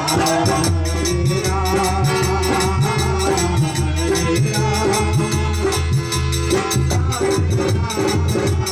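Live devotional kirtan music: a dholak, the two-headed barrel drum, played in a steady rhythm, with a melody line and fast, high jingling percussion over it.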